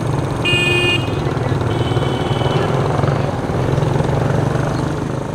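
Several small step-through motorbikes running at low speed as they ride past in a line, a steady engine hum. A short high beep sounds about half a second in, and a fainter one about two seconds in.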